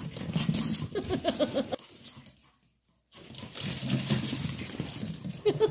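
Two Pomeranians scampering and chasing across a wooden floor: quick scrabbling paw patter and light thuds. Each stretch of running ends in a short burst of rapid, repeated high calls, and the sound drops out for about a second midway.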